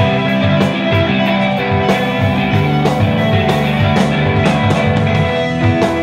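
Live band music: guitars playing over a drum kit keeping a steady beat.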